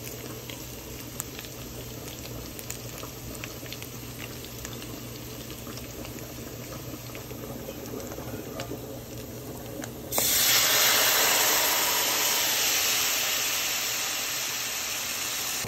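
Garlic and shallots sizzling gently in oil in a stainless steel skillet, with a few faint clicks from the wooden spatula. About ten seconds in, liquid goes into the hot pan with a sudden loud hiss of steam that slowly fades as the pan is deglazed.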